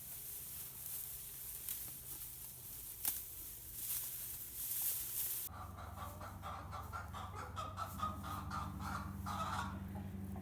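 Chickens clucking in a quick run of short calls in the second half, over a low steady hum. The first half holds only a hissy background with a few scattered clicks.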